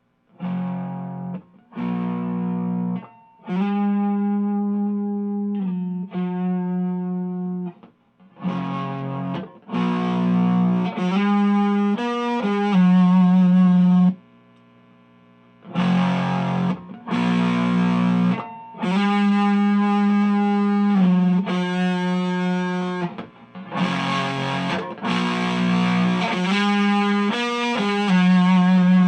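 Electric guitar played on a Fender Stratocaster's neck single-coil pickup through an Xotic Effects SL Drive overdrive pedal into an Orange Micro Dark amp: distorted chords and riffs in short phrases, with a pause of about a second and a half midway.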